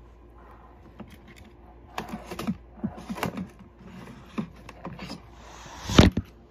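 Scattered small clicks and knocks of charging cables and their plastic plugs being handled. A louder knock about six seconds in, as the camera is jostled.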